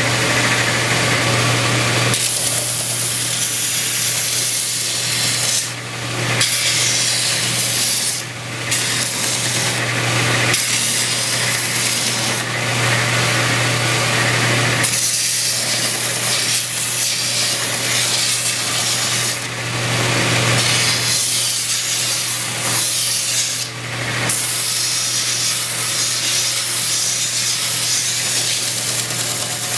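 Belt sander running and sanding down dried water-putty filler on the front of a wooden radio cabinet: a steady motor hum under a broad sanding hiss, which dips briefly several times.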